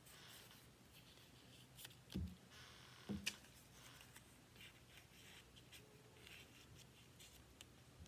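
Faint rustling of paper as a hand presses and rubs a cut-paper flower flat onto a paper collage to glue it down, with two soft knocks on the table about two and three seconds in.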